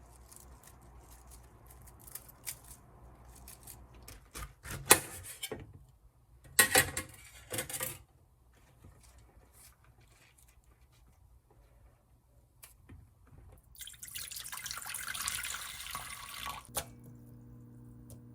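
Kitchen work sounds: scattered clicks and a few loud clatters, then about three seconds of water running from a tap near the end, followed by a steady low hum.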